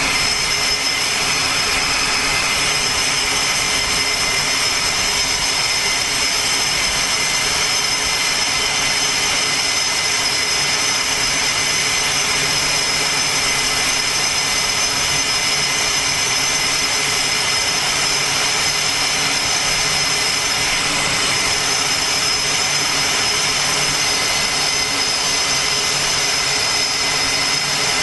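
Jet engines running steadily on an aircraft carrier's flight deck: a constant loud rushing noise with a steady high-pitched whine over it.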